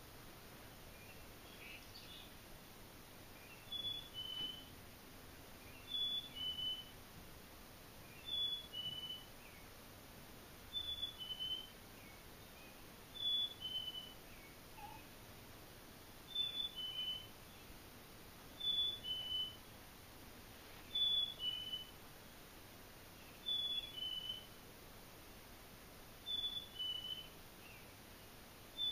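Black-capped chickadee singing its two-note 'fee-bee' song: a clear whistle that steps down from a higher note to a slightly lower one, repeated about every two and a half seconds from about four seconds in.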